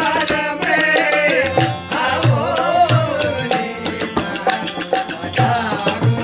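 Folk-style song: a singing voice over a steady drum beat, with sharp percussion strokes.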